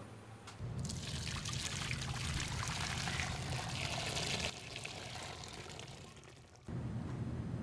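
Water running or pouring, a steady hiss that starts about half a second in and drops away after about four and a half seconds, over a low steady hum.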